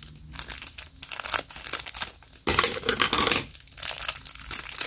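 Thin clear plastic packaging bag crinkling as a small squishy toy is handled inside it and worked out of it, with a denser stretch of crackling about halfway through.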